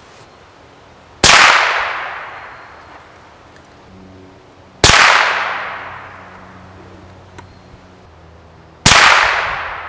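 Three shots from a homemade .22 LR rifle with a barrel made from rebar, spaced about three and a half to four seconds apart, each followed by a long echo ringing off through the woods.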